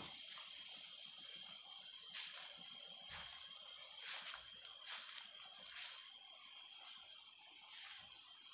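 A steady, high-pitched insect chorus of several shrill tones, with short swishing rustles roughly once a second from footsteps brushing through undergrowth.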